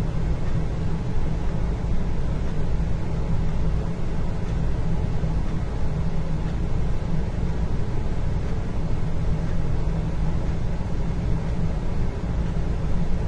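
Indoor ambience: a steady low rumble with a faint hiss over it, with no distinct events.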